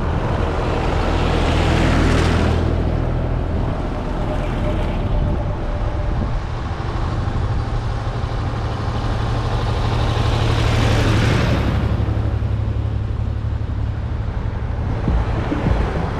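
Vintage tractors driving past one after another, engines running steadily, swelling louder as one passes close by about two seconds in and another about eleven seconds in.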